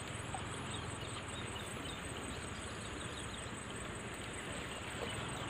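Insects chirring steadily, a high, fast-pulsing trill, over an even background hiss.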